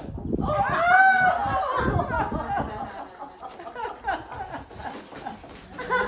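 Human voice making wordless sounds: a rising-and-falling whoop about a second in, then a run of short cries and laughing sounds.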